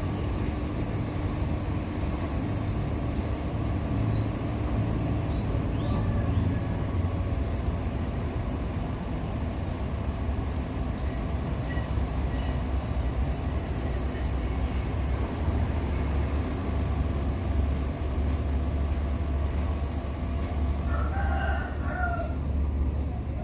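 Panasonic KN5RKJ air conditioner running through its startup: a steady low hum and rumble, its tones shifting about six seconds in and the low hum growing stronger from about halfway. A short pitched call cuts in near the end.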